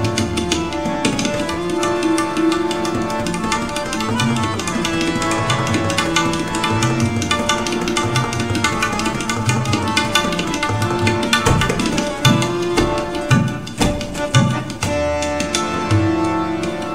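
Instrumental interlude of a ghazal: tabla keeping a steady rhythm under held melodic notes, with a run of sharper, louder drum strokes about three-quarters of the way through.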